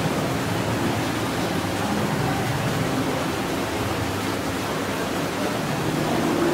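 Steady, even rushing background noise of an aquarium hall, with no distinct events.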